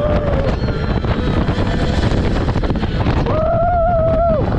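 Roller coaster ride: a steady rush of wind over the microphone, with a rider's long held yell about three seconds in.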